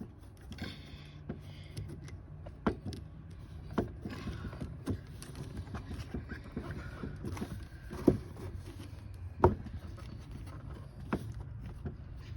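Irregular clicks and knocks of small clock parts being handled and fitted back together by hand, the two loudest about eight and nine and a half seconds in, over a low steady hum.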